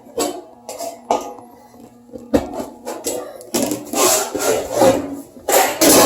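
Galvanized sheet metal being handled and worked by hand: a string of sharp knocks, then scraping and rubbing of metal on metal that grows denser and louder near the end.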